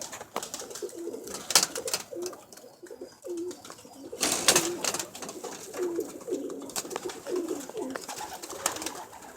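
Young domestic pigeons cooing, short low notes repeating throughout, with several sharp clatters, the loudest about a second and a half and four and a half seconds in.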